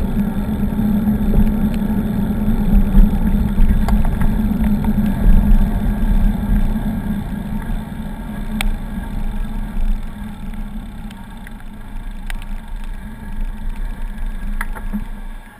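Heavy wind and rolling rumble on the microphone of a camera riding a bicycle along a wet, leaf-strewn path, with a few sharp knocks from bumps. The rumble eases about halfway through as the ride slows toward a crossing.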